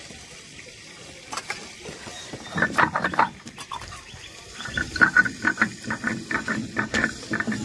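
Stone roller rubbing green chillies and cumin seeds on a flat sil grinding stone: a few rough strokes about two and a half seconds in, then quick, regular back-and-forth grinding at about four strokes a second from about halfway through.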